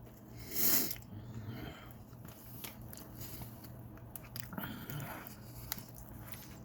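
A bite into a chicken bacon ranch sandwich topped with Doritos: one crunch a little over half a second in, then quieter chewing with small crackles.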